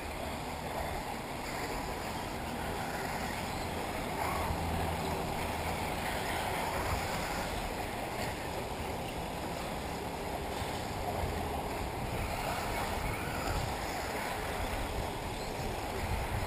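Steady rushing wind noise on the microphone, with 1/8-scale electric off-road RC buggies running on the track underneath.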